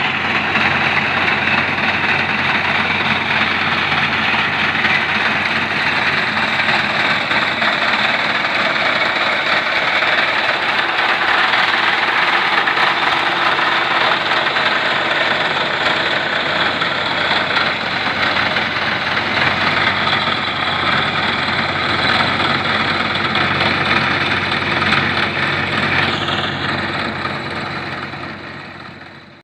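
Massey Ferguson 135 tractor running steadily while working with a tractor-mounted reaper. The sound fades out near the end.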